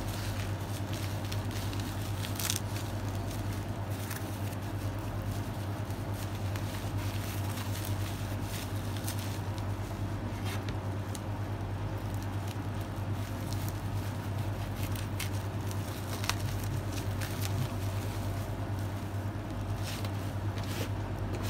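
Bubble wrap crinkling and crackling as it is pulled off a boxed smartphone, with scattered sharp crackles that gather near the end. A steady low hum runs underneath.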